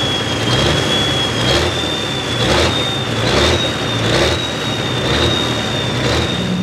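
International 1066 pulling tractor's diesel engine running hard, with a high steady whine over the engine note and a surge about once a second.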